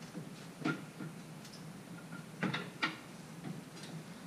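A handful of short knocks and taps on the steel frame of a Brunswick A2 pinsetter as a mechanic moves about on it, two of them close together about two and a half seconds in, over a low steady hum.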